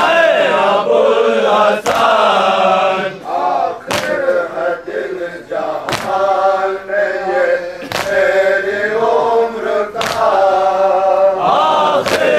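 Men chanting an Urdu nauha (mourning lament) together, led by a reciter at a microphone. A sharp slap lands about every two seconds, in time with the chant: the rhythmic chest-beating (matam) that keeps time for the nauha.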